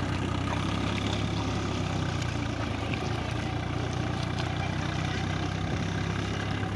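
Farm tractor's engine running steadily with a low, even drone.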